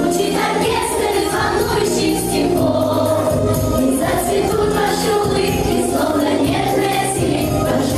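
A class of schoolchildren singing together in chorus over recorded backing music with a steady bass line.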